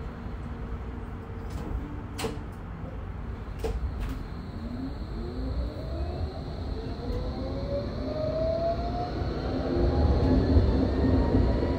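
Heard from inside a Flexity Berlin tram: a few sharp clicks and knocks, then the traction drive's whine starting low and rising steadily in pitch as the tram accelerates away from a stop, over a low running rumble that grows louder.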